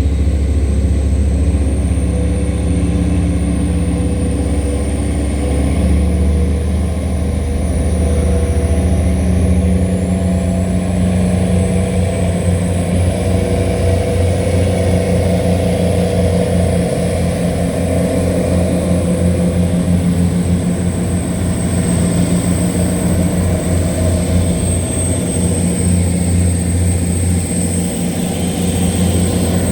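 Tugboat diesel engines running steadily under heavy load while towing a barge against the current. The deep drone takes on a fast throb about a third of the way in, and a thin high whine runs over it.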